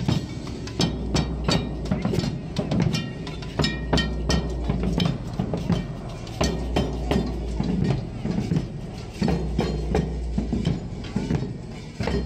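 Galician folión drum band of bombos (large bass drums) and tambores (side drums) beating a steady rhythm.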